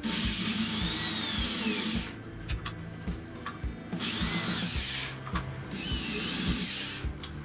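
Corded electric drill boring holes into a wooden panel, in two runs of about two seconds each, the motor's whine rising then falling in pitch each time. Background music with a steady beat plays beneath.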